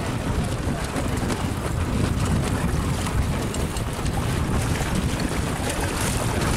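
Strong wind buffeting the microphone in a steady low rumble, over the wash of choppy water.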